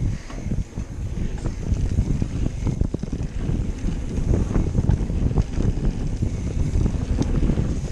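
Wind buffeting the microphone over the rumble of an Orbea Rallon mountain bike's tyres rolling fast down a dirt trail, with irregular rattles and knocks from the bike as it bounces over the bumps.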